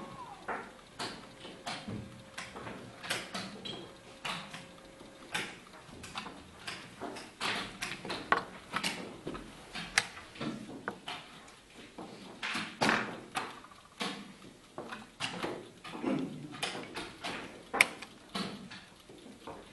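Wooden chess pieces clacking down on a board and the buttons of mechanical chess clocks being slapped during fast blitz play: irregular sharp clicks and knocks, several a second.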